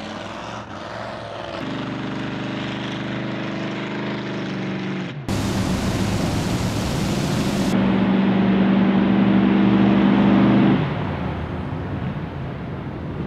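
Monster truck engine running hard at steady revs. About five seconds in the sound cuts to a louder, rougher mix with a wide hiss over the engine, and the engine note stays strong until it drops away near the end.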